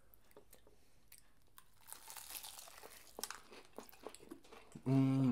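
Crisp fried chicken breading being bitten and chewed close to the microphone, with dense crackly crunches from about two seconds in. A voice hums briefly right at the end.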